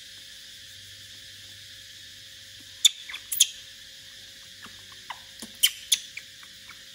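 Baby monkey sucking on a baby bottle's rubber teat: sharp wet clicks and squeaky smacks, about three close together around three seconds in and a few more between five and six seconds, with a short falling squeak just after five seconds.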